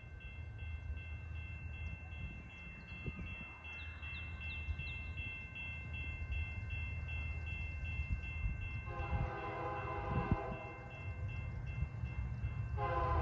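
Distant CN diesel locomotive horn sounding a chord: one long blast about nine seconds in, then a second blast starting near the end, over a low steady rumble.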